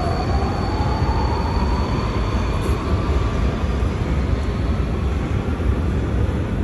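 Metro train pulling out of the station: a rising electric-motor whine over a steady rumble as it accelerates.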